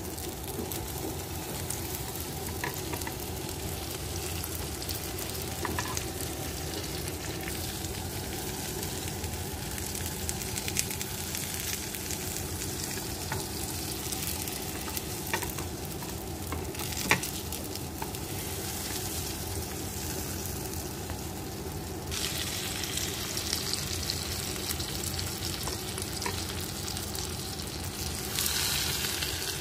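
Egg omelette with mushrooms sizzling in a rectangular omelette pan, a steady frying hiss with a few sharp clicks. The sizzle grows louder about two-thirds of the way through and again near the end.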